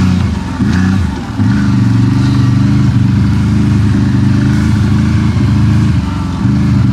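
CFMoto CForce ATV engine running under throttle. The revs ease off about a second in and pick up again, with another short lift off the throttle near the end.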